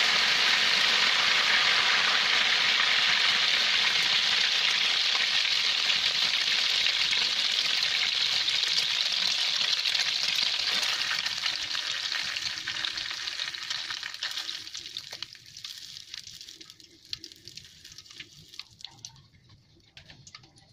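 Egg batter frying in hot oil in a wok: loud, steady sizzling that fades away over a few seconds about twelve seconds in as the egg sets. After that, a few light clicks as the skewer works against the wok.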